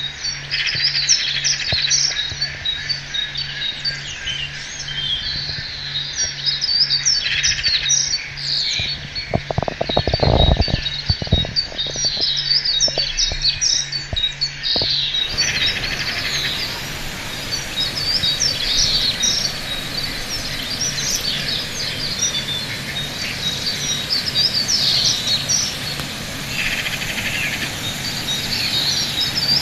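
Many birds chirping and calling, with short high chirps crowding over one another throughout. A run of low knocks or bumps comes about ten seconds in.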